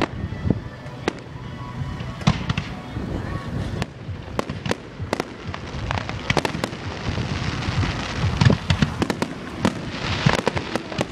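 Aerial fireworks going off: a rapid, irregular series of bangs that thickens into dense crackling in the second half.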